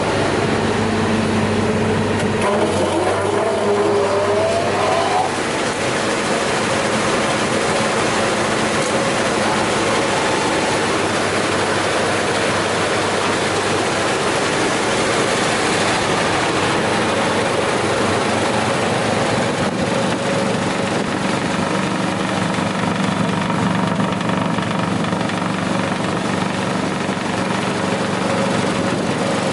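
Electric wood chipper-shredder starting up: its motor and cutting rotor spin up with rising whines in the first few seconds, then run steadily at speed with a loud, even whirring hum, no wood being fed.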